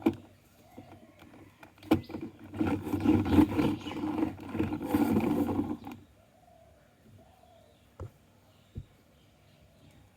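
Marbles rolling and clattering down a wooden marble run track: a dense rattling rumble that stops about six seconds in. Then come two sharp single clicks a little under a second apart.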